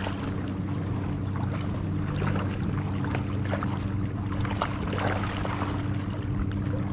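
Boat engine running steadily, a low even hum.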